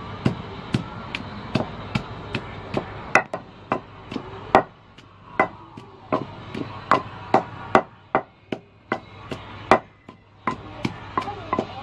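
Wooden pestle pounding chopped ingredients in a large wooden mortar: a steady run of sharp knocks, about two a second.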